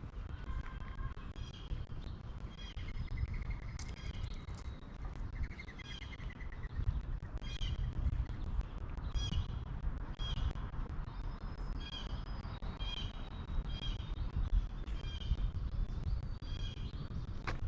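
Songbirds chirping, with a couple of short trills early on and then one short chirp repeated about once a second, over a steady low rumble.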